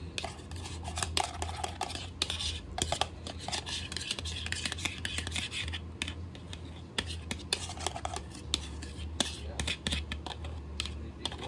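A utensil scraping thick mayonnaise dressing out of a mixing bowl onto macaroni salad: scratchy scrapes with many light taps and clicks, over a low steady hum.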